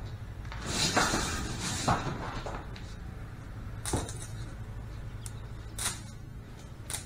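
Lengths of scrap electrical wire and cable being tossed onto piles on a concrete driveway, landing with about four light clattering knocks, over a steady low rumble.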